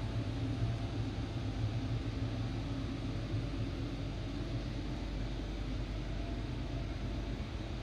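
Steady interior rumble and low hum of a Hyundai Rotem E32000 electric commuter train car, with an even hiss over it.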